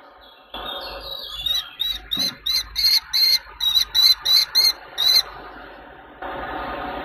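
Falcon calling: a rapid run of about eleven shrill, evenly repeated calls, roughly three a second, lasting a few seconds over a steady hum.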